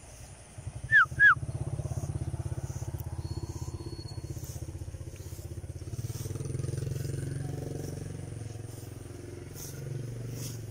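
Motorcycle engines running past on the adjacent street, a steady low drone that swells around the middle and again near the end. About a second in, two short, loud, falling whistle-like chirps.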